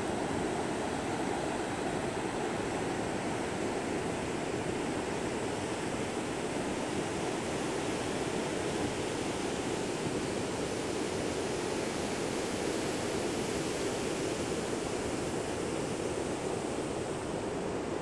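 Ocean surf breaking on a sandy beach: a steady, continuous wash of waves with no single crash standing out.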